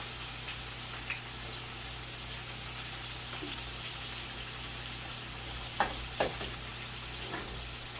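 Red snapper pieces deep-frying in hot oil: a steady sizzle, with two short sharp knocks about six seconds in.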